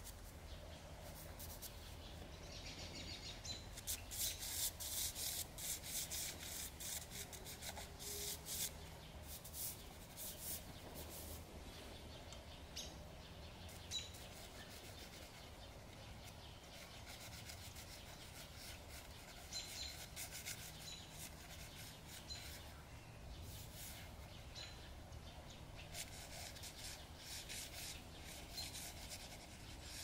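Dry pastel stick rubbing and scratching across sketchbook paper in short, irregular strokes, with a few faint high bird chirps between them.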